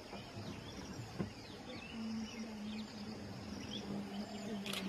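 Tropical forest ambience: a steady high insect drone with scattered short bird chirps. There is a sharp click about a second in, and a low steady hum joins at about two seconds.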